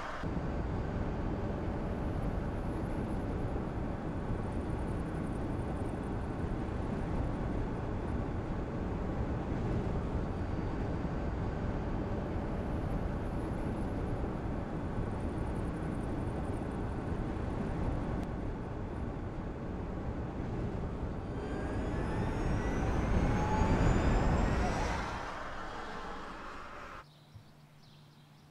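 Steady road and tyre noise of a car driving at speed. Near the end it swells as a car passes with a rising whine, then drops off suddenly to a faint low hum.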